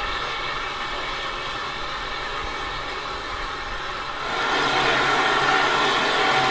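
The SECR O1 class steam locomotive No. 65 hisses steadily while standing, as steam escapes. The hiss grows louder about four seconds in.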